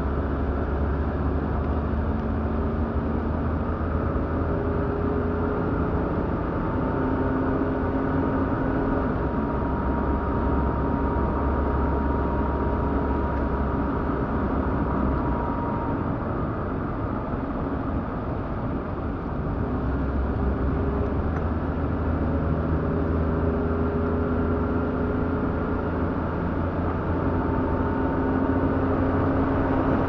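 Car engine and road noise heard from inside the cabin while driving, a steady rumble whose engine note shifts pitch a few times as the throttle and speed change.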